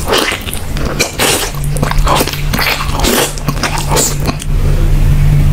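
Close-up eating sounds: a man biting and tearing meat off a curry-covered chicken leg, with a quick run of wet bites and chews. A steady low hum carries on under them and is left alone for about the last second.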